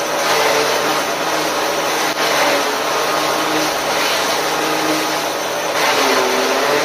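Forage chopper running steadily as green grass stalks are fed in, its blades shredding them into chopped cattle feed. The machine's hum dips in pitch and recovers near the end as a load goes through.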